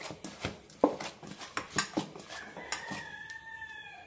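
A hand mixing moist poha-flour dough in a stainless steel bowl, with irregular knocks and scrapes of fingers against the metal. In the last second and a half, a faint drawn-out whine runs under it.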